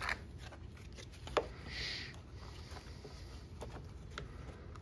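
A few light clicks and knocks of small engine parts and tools being handled during reassembly, the sharpest about a second and a half in, with a short soft rustle around two seconds.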